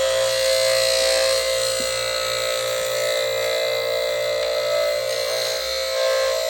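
Foley 355 blade sharpener running steadily, its motor humming and its grinding wheel hissing as it takes a pass along two planer blades.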